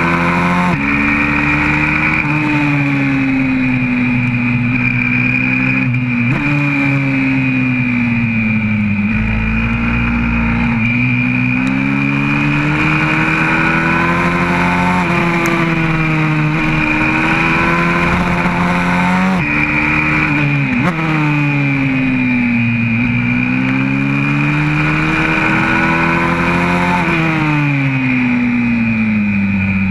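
YCF 125cc four-stroke pit bike engine at racing speed, heard on board: the pitch climbs through the gears with sudden drops at each upshift, and falls and rises again through the corners.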